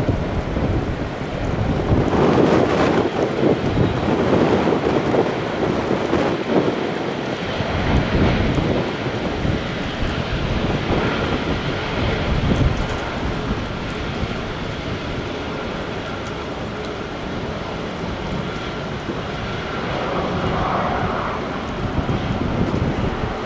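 Boeing 777-200ER twin jet engines running as the airliner passes, louder over the first several seconds, with a faint steady whine later on. Wind buffets the microphone throughout.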